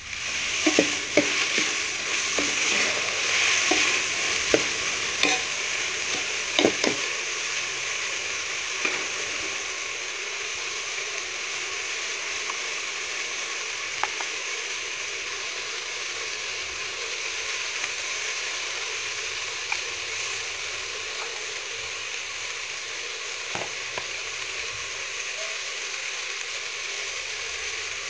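Sliced onions sizzling steadily in hot oil in an aluminium pot over a wood fire. A metal spoon clinks against the pot and spice tin several times in the first seven seconds, and now and then after that.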